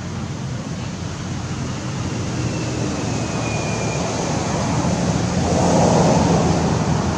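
Steady low rumble of outdoor background noise, swelling slightly about five to six seconds in.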